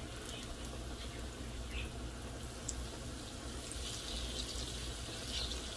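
Breaded eggplant slices frying in a skillet of hot vegetable oil: a steady sizzle with scattered small pops and crackles, over a low steady hum.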